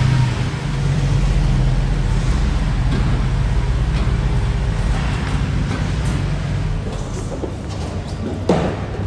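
Steady low rumble and noise of a running vehicle, with a brief louder noise near the end.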